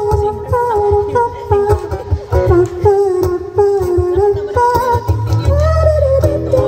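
A woman singing live into a microphone while strumming an amplified acoustic guitar, the voice gliding between held notes over a steady strummed accompaniment.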